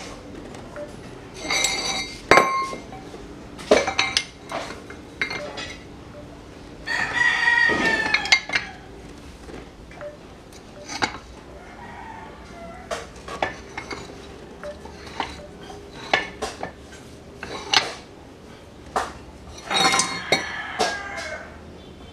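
Steel clanks and clinks as heavy steel plates and a crankshaft flywheel half are set and shifted on a press bed. A rooster crows about seven seconds in and again near the end.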